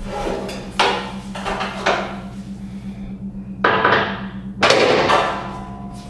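Sheet-steel chip tray being handled and set down onto a steel machine stand: several sharp metallic knocks and clanks, each with a short ring, over a steady low hum.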